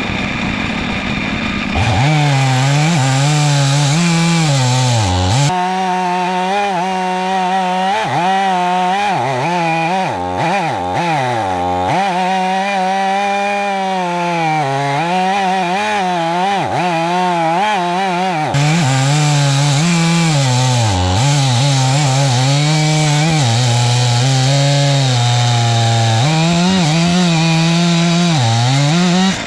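Chainsaw on an Alaska chainsaw mill cutting lengthwise through a log. The engine speeds up about two seconds in, then holds at cutting speed, its pitch repeatedly dipping and recovering as the chain loads up in the wood.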